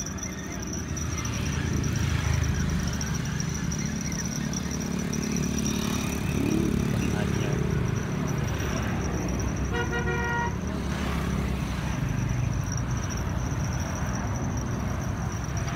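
A motor running steadily with a low rumble, and a short horn toot lasting under a second about ten seconds in. A thin high-pitched whine runs steadily under it.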